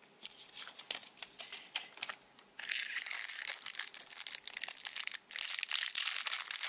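Surprise-egg packaging crinkling as it is handled and opened. At first a few scattered crackles, then from about two and a half seconds in a dense, continuous crinkling with one brief pause about three quarters through.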